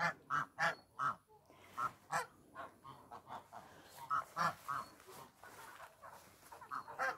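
Domestic geese honking: a string of short, repeated honks in irregular bursts, some louder and some fainter.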